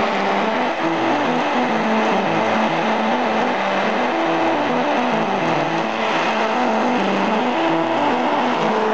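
Streams of falling water drumming on an open umbrella overhead, which turns the drops into music: a tune of low notes stepping up and down about four times a second over a steady hiss of pattering water.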